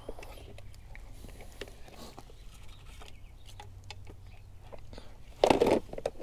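Clear plastic storage boxes being handled, with light clicks and rustles of plastic and damp paper as a wet paper negative is laid in a tray. About five and a half seconds in there is one louder, brief plastic clatter.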